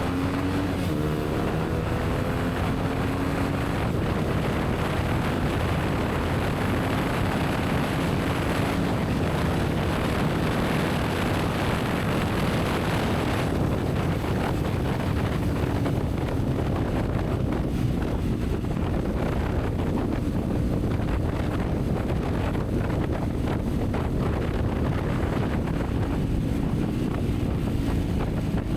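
Honda CBR150R single-cylinder engine running on the move, its note rising as the bike accelerates near the start, under heavy wind rush on the microphone. The wind noise drops off about halfway through, leaving the engine note steadier.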